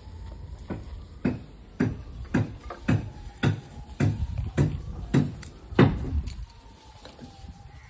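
Footsteps of the person filming, heavy thumps about two a second, stopping near the end. A faint wavering tone sits behind them.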